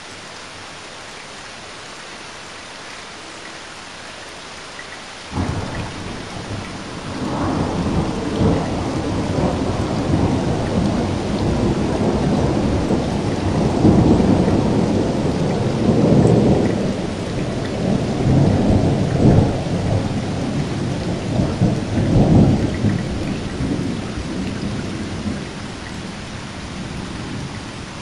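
Heavy rain falling with a steady hiss; about five seconds in, thunder breaks in suddenly and rolls on in a long low rumble with several swells, slowly dying away near the end.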